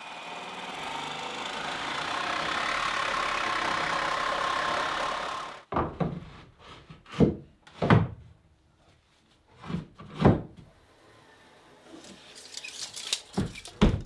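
A power saw cutting through a barn board, its steady noise stopping abruptly about halfway through. This is followed by about five separate wooden knocks as a board is set against the wall, with lighter rattling near the end.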